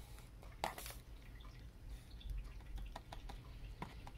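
Faint scattered taps and clicks of a finger on cardboard toothpaste cartons. There is a sharper tap about a second in and a few small ones near the end, over a low steady hum.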